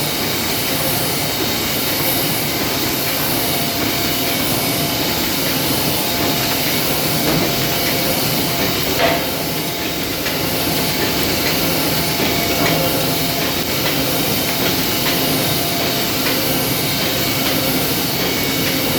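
Muller Martini Presto saddle stitcher running steadily: a continuous mechanical clatter and hiss with a repeating beat about once a second.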